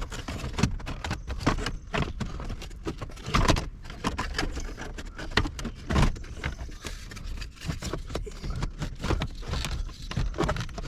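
Plastic instrument cluster bezel of a 1978 Ford Mustang being pulled and wiggled out of the dash, with a steady run of irregular clicks, knocks and rattles of plastic parts.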